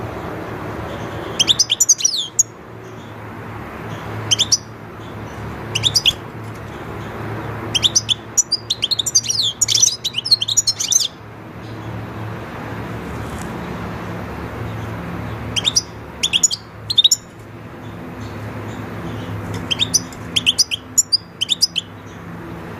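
European goldfinch singing in short bursts of quick, high twittering phrases, with the longest run about a third of the way in, over a steady low background noise.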